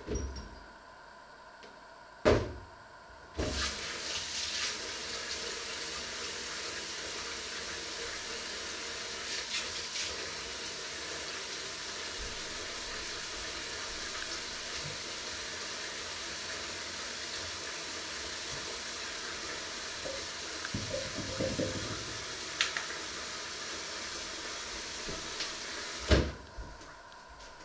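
Kitchen tap turned on, water running steadily into a stainless-steel sink for about twenty seconds, then shut off suddenly. A knock comes just before the water starts, and another as it stops.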